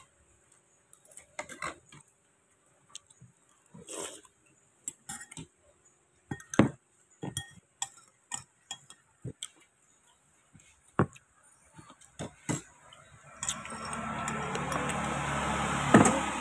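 Metal spoon clinking and scraping against a ceramic soup bowl in scattered light clicks, with eating sounds. About three seconds before the end a louder steady rushing noise rises and then fades.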